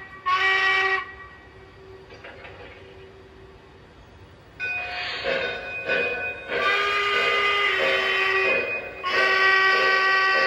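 Onboard sound system of a Lionel Legacy brass hybrid O gauge 4-4-0 steam locomotive blowing its steam whistle as it pulls away. There are two short toots at the start, then a quieter stretch, then longer whistle blasts from about four and a half seconds in.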